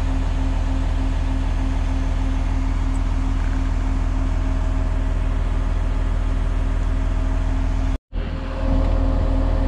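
Large wheel loader's diesel engine running at a steady idle, a deep, even hum. The sound cuts out for a split second about eight seconds in.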